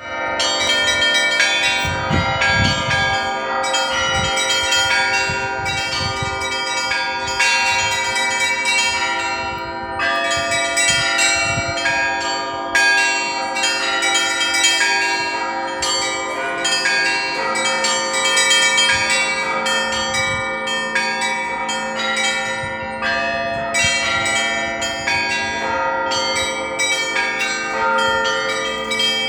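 Russian Orthodox monastery bells ringing: a dense, rapid pattern of strikes on the smaller bells over the lingering tones of the middle bells, with deep strokes of a heavy bell every few seconds.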